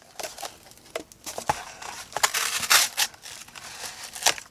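Cardboard being cut with a Gerber Flatiron folding cleaver-blade knife: the blade is poked through and drawn up through the board in a series of rough scraping, tearing rasps, loudest about two to three seconds in.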